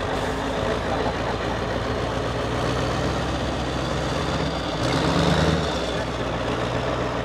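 Diesel engine of a Mercedes-Benz 8x8 trial truck pulling steadily at low revs as it crawls over dirt mounds, with a brief rise in revs about five seconds in.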